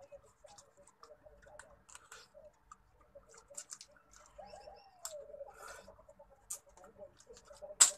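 Close mouth sounds of eating shellfish by hand: lip smacks, finger sucking and chewing, heard as a string of sharp wet clicks, the loudest one just before the end.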